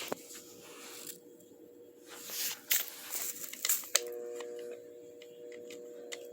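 Rustling and scattered clicks as a Douglas Fir talking Christmas tree toy and its artificial pine branches are handled, then a steady electrical hum from the toy's speaker that starts suddenly about four seconds in.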